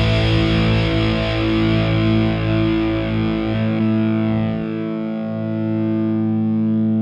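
Les Paul-style electric guitar through a Mesa/Boogie Dual Rectifier amp in its silicon-rectifier Bold mode and a Marshall cabinet, playing heavily distorted chords that are let ring. A little past halfway the deepest notes drop out and a last chord is held, ringing steadily.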